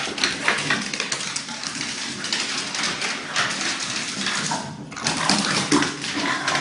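English bulldog puppy scrambling and skidding across a hardwood floor, its claws clicking and scraping in a dense, scratchy clatter, with a brief lull a little under five seconds in.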